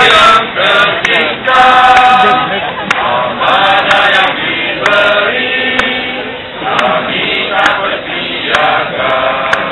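A large mixed group of men and women singing together as a choir, in long held phrases with short breaks between them.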